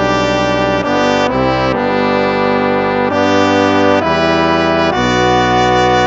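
Instrumental hymn music: slow, sustained chords that move to a new chord every second or so.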